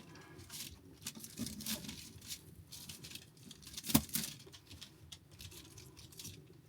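Knife cutting breaded air-fried chicken nuggets on a cutting board: irregular light taps and scrapes, with one sharper knock about four seconds in.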